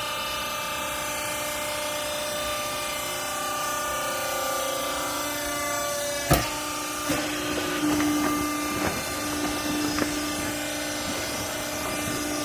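Old-clothes baler machine running with a steady hum, a sharp clank about six seconds in, then a few knocks over the next few seconds.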